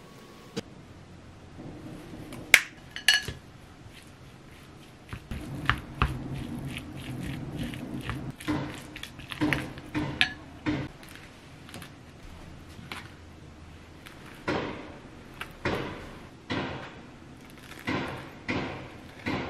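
Wooden spoon mixing egg salad in a glass bowl: two sharp clinks against the glass early on, then a stretch of scraping and knocking as it stirs. Near the end, short scooping strokes about once a second as the filling is spooned out and pressed into toasted bread.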